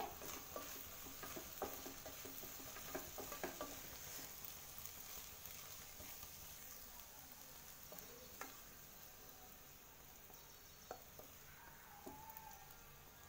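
Faint sizzling of vegetable pasta cooking in a nonstick pot as it is stirred with a wooden spoon. The spoon scrapes and taps against the pan now and then, with a cluster of taps in the first few seconds.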